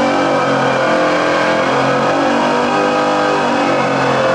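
Norton V4SV superbike's 1200 cc V4 engine running loud and steady at speed in gear on a rolling-road test bench during its end-of-line brake and power test, the first time the new engine has been run.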